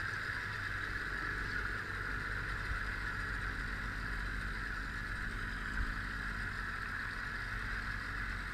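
Outboard motor of an inflatable rescue boat idling steadily, under a steady hiss.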